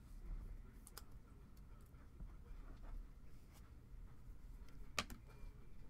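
Faint rustling and small clicks of trading cards being handled and flipped through by hand, with one sharp click about five seconds in.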